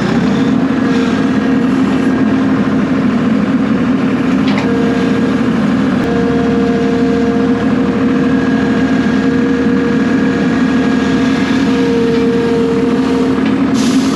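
A vehicle engine running steadily with a constant loud drone and faint steady whining tones that fade in and out.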